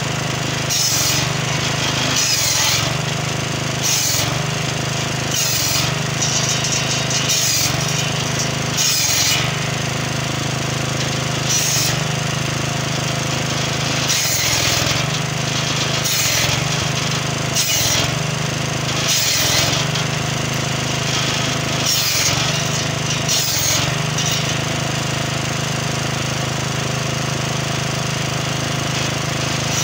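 Petrol-engine-driven circular saw with a carbide-tipped blade cross-cutting acacia logs: the small engine runs with a steady low hum while the blade gives a harsh high-pitched bite at each cut, about one every second and a half, easing to a lull of a few seconds near the end.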